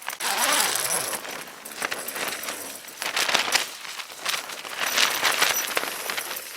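Tent fabric of a Tarptent StratoSpire 1 flapping and snapping in strong wind gusts, a rushing hiss full of rapid sharp cracks that surges in waves, loudest right at the start, again about three seconds in and around five seconds in.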